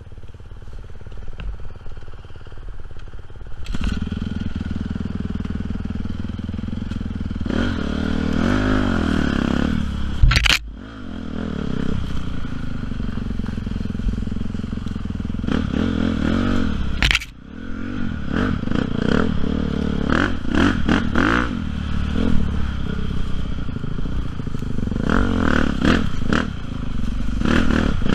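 Honda CRF450 four-stroke single-cylinder dirt bike engine ticking over quietly, then pulling away about four seconds in and revving up and down as the bike rides. Two sharp knocks, about ten and seventeen seconds in, are each followed by a brief drop in engine sound.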